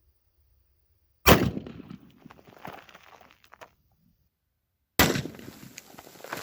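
.223 rifle firing a full metal jacket round into soda cans: a sharp, loud crack followed by crackling as the cans burst apart, heard twice about four seconds apart.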